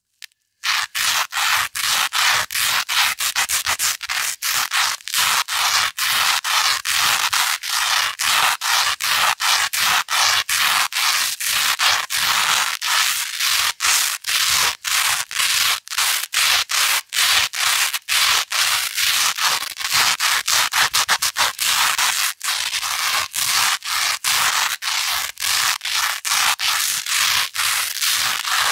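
Velcro hook tape scraped rapidly back and forth against loop material in quick, regular strokes. It starts about half a second in and goes on without a break.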